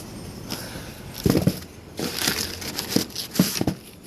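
Packing paper crumpling and rustling as it is pulled out of a cardboard box, with a few soft knocks from handling the box.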